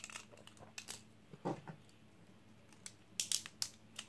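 Small plastic and metal Beyblade parts clicking and tapping as they are handled and fitted together, with a quick flurry of clicks about three seconds in.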